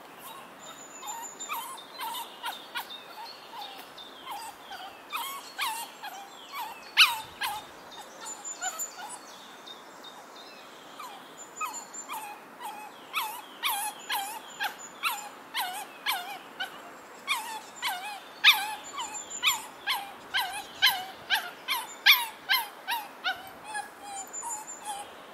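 Miniature poodle whining in short, falling cries, one or two a second, with a few sharper, louder yelps among them and a short pause about ten seconds in. This is separation distress: he protests when his owner walks away from him.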